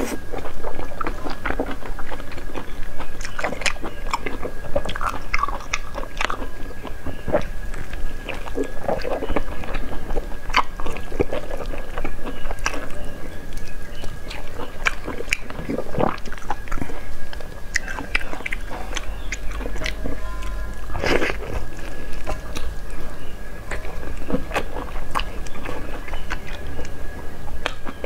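Close-miked eating of braised pig's trotters: chewing and sucking the skin and meat off the bone, with many small wet mouth clicks and smacks. A faint steady high tone runs underneath.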